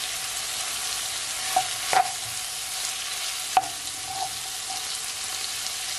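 Sliced bell peppers, carrot and onion sizzling steadily in a hot stone-coated wok while a wooden spoon stirs them, knocking sharply against the pan a few times, about two and three and a half seconds in.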